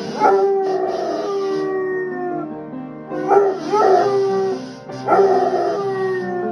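A basset hound howling along to an upright piano: three long howls, at the start, about three seconds in and about five seconds in, over the piano's held notes and chords.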